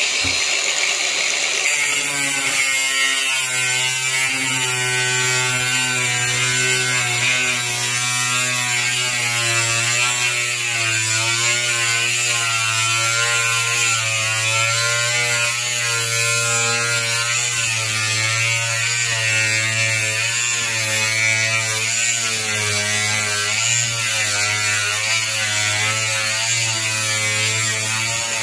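Cordless angle grinder with a thin metal cutting disc slicing through mild steel sheet. It runs steadily with a motor hum and the high hiss of the disc on the steel, its pitch wavering as the grinder is rocked back and forth along the cut.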